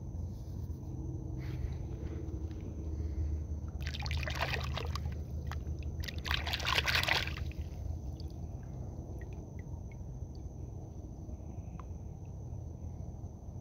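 Water splashing and sloshing as a hand rinses a sand-covered fossil megalodon tooth in shallow water: two bursts of splashing, about four seconds in and again around six to seven seconds, over a steady low rumble.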